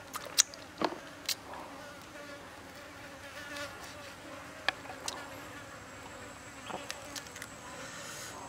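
Insects buzzing steadily, fly-like, with a few sharp clicks and taps over them, the loudest about half a second in, as a grilled chicken wing is handled and cut with a knife on a wooden stump.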